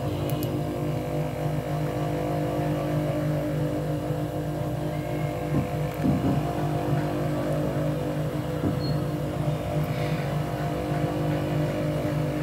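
Steady electric-motor hum from the Juki industrial sewing machine's running motor, one even pitch that does not change, with a few faint clicks of small metal parts being handled about six seconds in.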